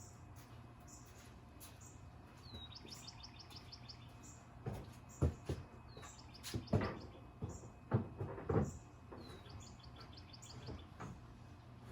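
A songbird singing the same short trilled phrase three times, a few seconds apart, with scattered high chirps between. In the middle a handful of knocks and thumps sound, louder than the song.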